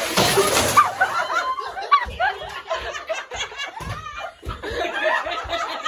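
People laughing and giggling, with a brief loud rustle against the phone's microphone at the start.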